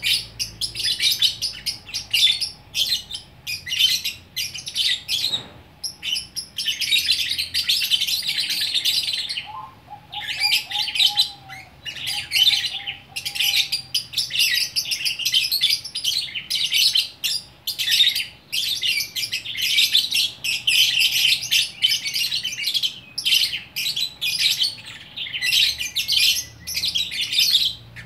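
Lovebird chattering in long bouts of rapid, high-pitched twittering trills broken by brief pauses: the continuous 'gacor' song that lovebird keepers prize.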